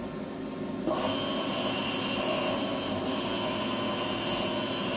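775 DC ball-bearing motor, the high-RPM 'agriculture' type with an internal cooling fan, switched on about a second in and then running steadily at full speed on 12 V with nothing on its shaft: an even whine with a rush of air from the fan.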